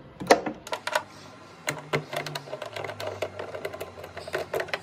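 A hand wrench working the 10 mm bolts that hold the motor housing of a Dri-Eaz centrifugal air mover, giving a run of quick, uneven clicks.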